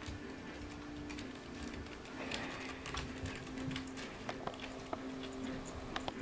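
Light scattered clicks and taps of kittens' paws and claws on a wooden floor and rattan table rails, busier from about two seconds in, over a low steady hum.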